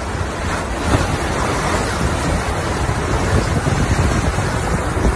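Fast-flowing floodwater rushing across a street as a steady, loud noise, with wind buffeting the phone's microphone.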